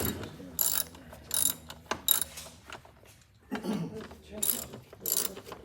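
Hand tools and metal transmission parts clicking and clinking in short repeated bursts, roughly one a second, with a sharp metallic click about two seconds in.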